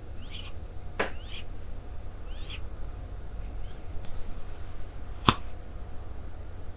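Scottish Straight cat snoring in its sleep, short high squeaky snores about once a second, over a steady low rumble. Two sharp clicks, one about a second in and a louder one about five seconds in.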